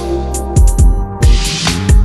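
Electronic music with sustained bass notes and heavy kick drum hits, with a short hissing swell about halfway through.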